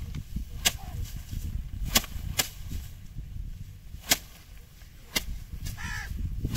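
Bundles of rice stalks whacked down hard on upturned concrete cylinders, about five sharp, irregularly spaced strikes: hand threshing, knocking the grain loose from the straw.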